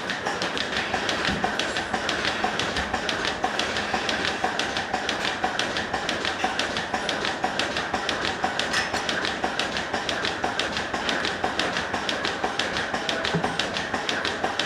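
Pulsators of a pipeline milking machine clicking in a steady rapid rhythm, several ticks a second, over the steady hiss of the milking vacuum.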